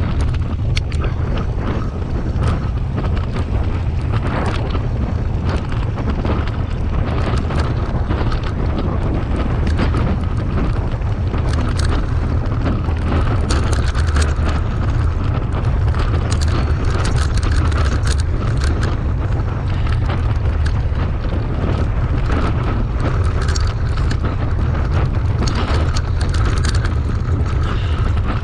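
Wind buffeting the camera microphone, a steady low rumble, while a mountain bike rides fast down a dirt forest trail, with frequent short knocks and rattles from the bike jolting over bumps.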